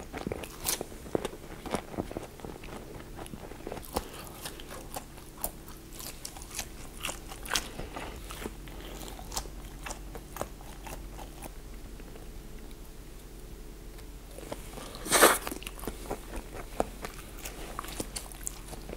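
Crunching and chewing of crisp deep-fried food (battered fried jelly and fish cake), a scatter of sharp crisp bites and chews, with one louder crunch about fifteen seconds in.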